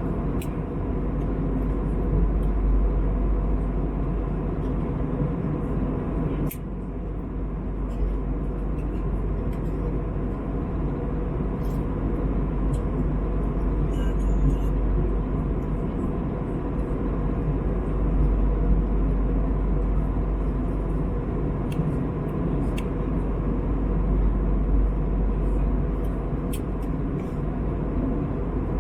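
Steady cabin roar of an Airbus A321neo in cruise: engine and airflow noise, heavy in the low end, with faint steady hums. The level dips briefly about six seconds in, and small clicks come and go.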